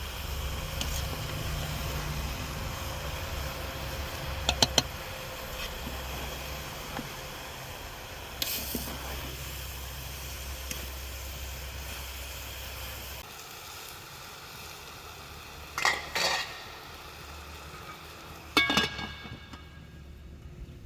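Food sizzling in a cooking pot while a metal utensil stirs it, with a few sharp clinks of metal on the pot, including three quick ones about a quarter of the way in. A low rumble underneath stops a little past halfway.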